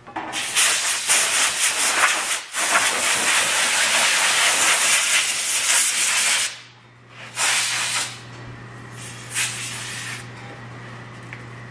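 Compressed-air blow gun on a shop air hose, blasting air through a dog's coat to blow the dirt off. One long hissing blast runs for about six seconds with a brief dip partway through, then two shorter bursts follow.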